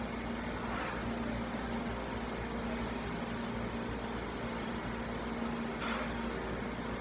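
Steady mechanical hum and hiss of a running room appliance, with a constant low drone.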